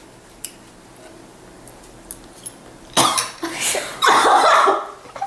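A person coughing and choking after a bite of food, in two hard bouts starting about three seconds in.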